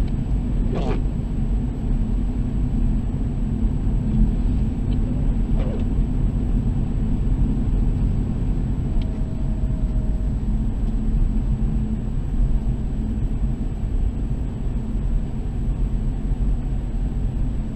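A car driving on a concrete highway: steady low engine and tyre rumble, with a couple of brief knocks.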